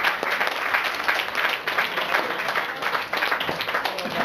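Room of guests applauding, many hands clapping steadily, with a few voices mixed in.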